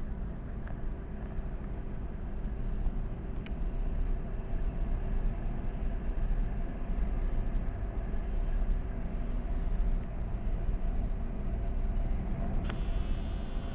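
R62A subway car running on elevated track, heard from inside: a steady rumble of wheels and motors. Near the end a click is followed by a high, steady squeal as the train approaches the station.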